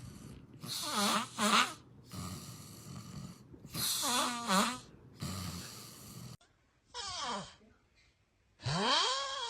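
A person snoring: rasping breaths alternating with squeaky, wavering high-pitched snorts every couple of seconds. About six seconds in, the sound cuts to a different recording: a short falling moan, then a long moaning snore that rises and falls in pitch.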